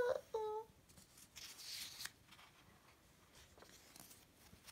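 Paper picture-book page being handled and turned: a soft swish of paper sliding under the hand about a second and a half in, followed by a few faint ticks.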